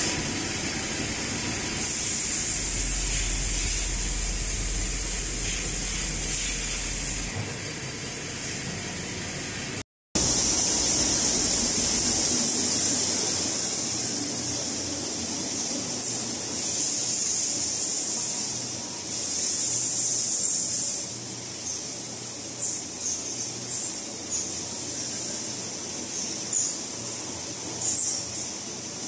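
CNC Swiss-type lathes running in a machine shop: a steady high hiss of machining noise, with a few light ticks near the end.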